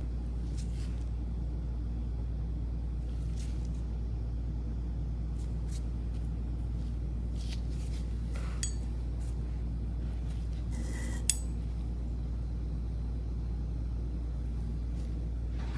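Steady low hum with faint small clicks and taps scattered through it, and one sharper click about eleven seconds in.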